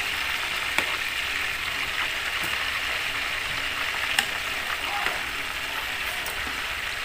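Snakehead fish and frogs deep-frying in hot oil: a steady sizzle, with a few light clicks as metal tongs touch the pan and the food.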